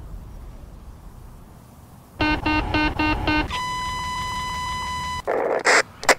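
Electronic target-lock sound effect: a quick run of five short beeps, then one steady high beep held for under two seconds as the lock is made. A low rumble fades out before it, and a short noisy burst follows near the end.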